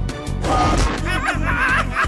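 Action-cartoon background music with a steady beat; about a second in, cartoon villains break into gleeful cackling laughter over it.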